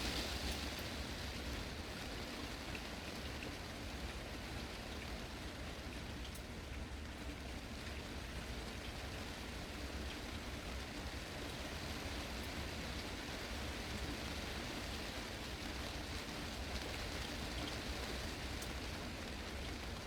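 Heavy rain falling steadily on a glass greenhouse roof, a continuous even patter with a few faint sharper drop clicks.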